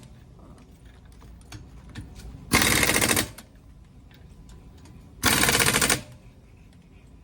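Impact wrench running lug nuts onto a car wheel: two short rattling bursts, under a second each, a few seconds apart.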